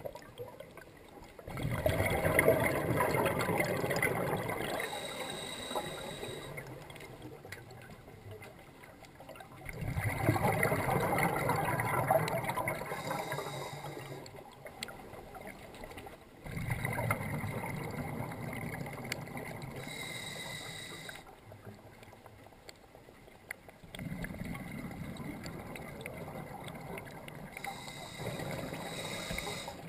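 Scuba diver breathing through a regulator: four bubbling exhalations, each a few seconds long and fading, about every seven to eight seconds, with quieter pauses between.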